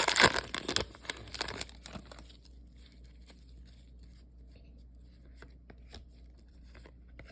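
A trading-card pack wrapper being torn open and crinkled for about the first two seconds. After that come faint scattered clicks of the cards being handled.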